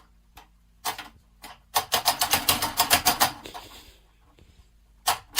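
A few separate sharp clicks, then a fast run of clicks at about eight a second that fades out, and another short run near the end.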